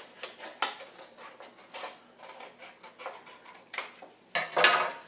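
Scissors cutting paper in a run of short, irregular snips, with a louder rustle of the paper about four and a half seconds in.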